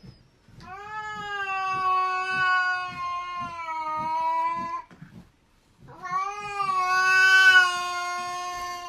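A cat yowling in two long, drawn-out calls, the first about four seconds and the second about three, each held at a steady pitch.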